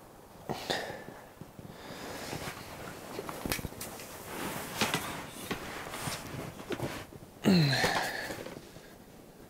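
Rustling and light knocks of ice-shack fabric and a camera tripod being handled. About three-quarters of the way through there is a short grunt that drops in pitch.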